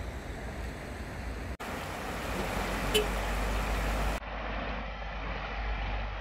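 Steady outdoor rumble and hiss with the sound of road traffic. It changes abruptly about a second and a half in and again about four seconds in.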